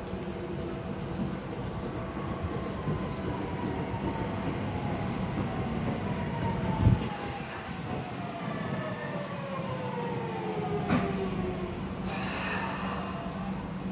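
Seibu 6000 series electric train with Hitachi GTO-VVVF inverter drive, braking to a stop. Its inverter whine falls in pitch in several tones as the train slows. There is a sharp thump about seven seconds in and a short hiss near the end.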